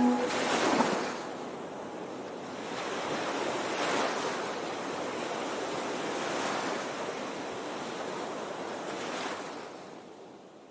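Waves breaking on a shore, rising and falling in about four swells, with some wind on the microphone; fades out near the end.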